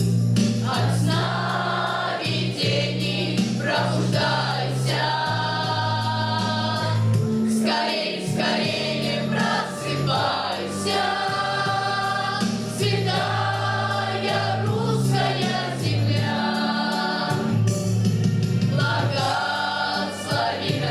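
School cadet choir singing, with steady low held notes of accompaniment beneath the voices.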